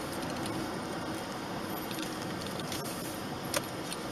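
Steady road and engine noise heard from inside a moving car, with one faint click about three and a half seconds in.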